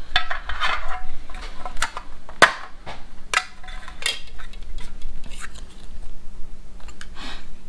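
Small metal ration tin and its packaging being handled: a string of clinks and taps among rustling, with one sharp tap about two and a half seconds in the loudest.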